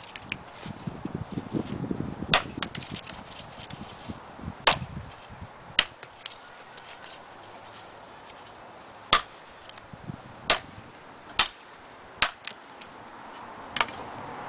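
Collins camp hatchet chopping a branch of gnarly old hedge-tree wood laid across a wooden stump: about eight sharp chops at uneven intervals. The branch rustles as it is handled in the first couple of seconds.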